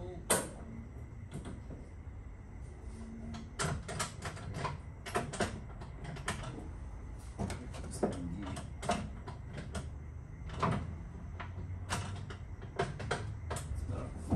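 Irregular knocks, clicks and clunks of someone handling things around a car, one every second or so, over a low steady hum.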